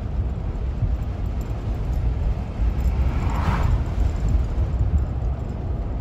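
Road and wind noise of a moving SUV: a low, uneven rumble, with a brief swell of hiss about three and a half seconds in.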